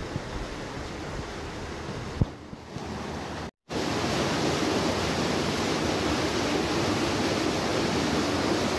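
Stream water rushing and splashing down a narrow rock gorge under a wooden boardwalk, a steady rushing noise. It cuts out for a moment about three and a half seconds in and comes back louder. There is a single sharp knock about two seconds in.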